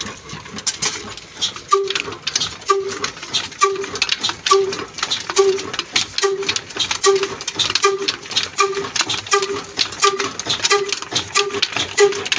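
Old Ruston diesel engine running with a slow, even beat that quickens, from about one beat a second to nearly two, each beat carrying a short squeaky whistle, over a steady mechanical clatter.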